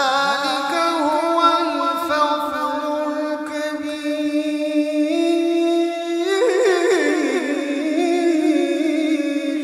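A man's solo voice in melodic Quran recitation (tajweed), holding long, ornamented notes. The pitch climbs in steps about five and six and a half seconds in.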